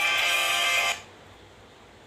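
A Nokia E63 ringtone melody playing, cutting off abruptly about a second in and leaving a faint hiss.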